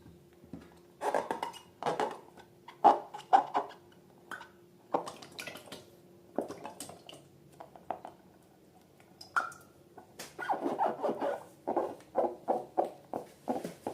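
Hands working slime and rubber balloons: irregular squishing, squeaking and rubbing sounds that pause for a couple of seconds midway, then come in quick succession.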